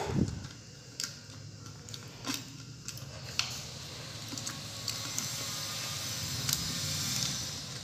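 Hands handling a string of Christmas mini lights and its wires at a jar lid: scattered small clicks and knocks, then a steady rustling scrape from about three and a half seconds in until near the end.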